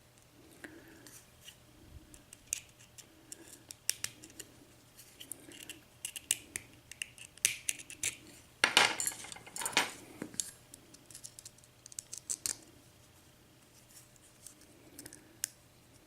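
Metal tool scraping and clicking against the retaining clip on the end of an ERA euro lock cylinder as the clip is worked at to pry it off. The clip is stubborn and not coming off. Scattered light clicks, with a louder run of scraping about nine seconds in.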